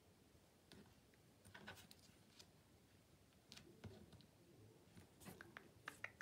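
Near silence with faint, scattered clicks and light rustles from craft materials being handled on a work table.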